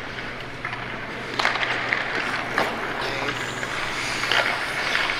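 Ice hockey practice on a rink: several sharp clacks of pucks striking sticks and boards, and the scrape of skate blades on ice, over a steady low hum.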